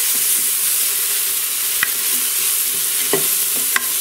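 Diced onions sizzling in butter in an electric pressure cooker's inner pot on sauté, a steady hiss. The spoon stirring them knocks lightly against the pot about two seconds in and twice near the end.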